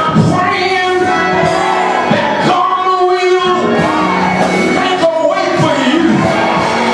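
A loud voice singing, with held, bending notes over instrumental accompaniment, echoing in a large church hall.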